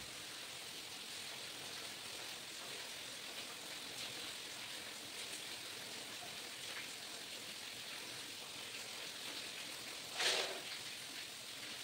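Steady soft hiss throughout, with one short louder rustle about ten seconds in.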